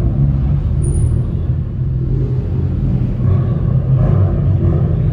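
Car engines and exhausts running in a concrete parking garage: a steady low rumble that swells briefly about three and four seconds in.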